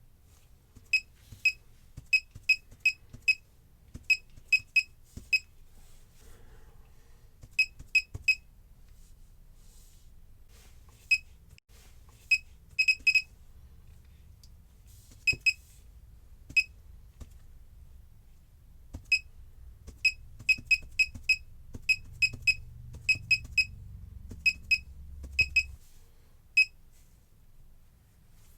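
Laser projection keyboard's short electronic key-press beeps, one high beep per keystroke, in irregular runs of several a second with pauses between, as text is typed on the projected keys.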